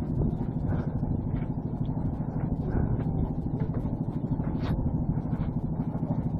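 Motor vehicle engine running steadily at an even pitch while driving, with a few faint clicks.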